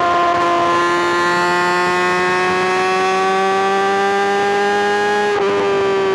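Kawasaki ZX-6R inline-four engine running at high revs under load, its pitch rising slowly. About five seconds in, the note breaks and the pitch dips.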